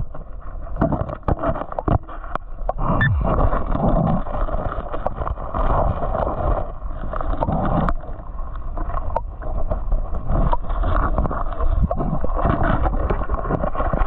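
Creek water gurgling and rushing close to the microphone, with scattered clicks and knocks.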